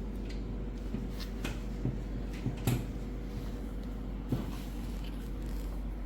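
Several short, separate knocks and clicks, the loudest about two and a half seconds in and another a little after four seconds, over a steady low hum.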